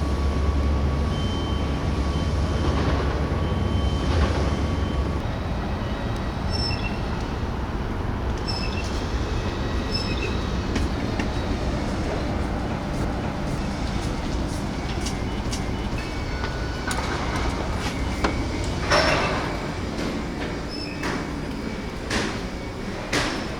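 Steady vehicle running noise, with a deep hum for the first few seconds, then scattered clicks and knocks, including a louder one about nineteen seconds in and another near the end.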